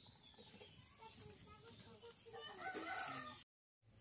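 A rooster crowing a little over two seconds in. The crow is cut off abruptly by a short dropout in the audio.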